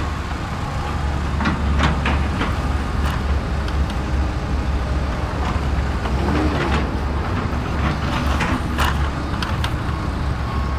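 Steady low rumble of wind buffeting the microphone, with scattered clicks and knocks as a plastic Bruder MAN toy dump truck is handled and pushed over the ground.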